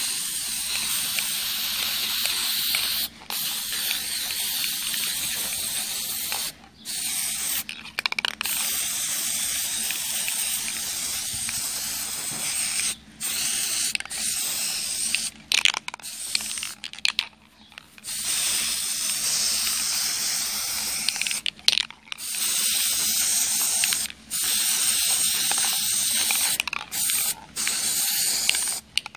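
Aerosol spray paint can hissing as paint is sprayed onto a cement piece, in runs of a few seconds each, stopping briefly about a dozen times as the nozzle is released and pressed again.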